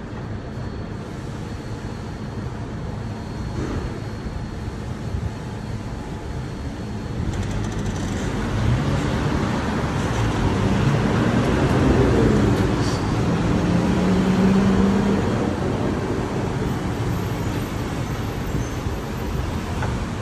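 Road traffic on a city street: an even rumble of passing vehicles, with one engine drawing closer and growing louder to a peak about halfway through, then fading.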